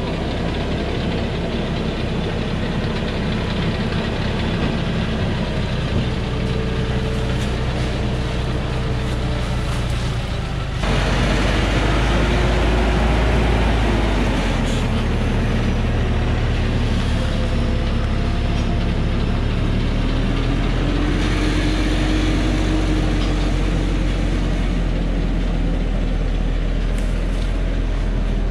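Diesel engine of a heavily loaded log truck labouring up a steep, muddy dirt slope, its pitch rising and falling as the driver works the throttle. It gets abruptly louder about eleven seconds in.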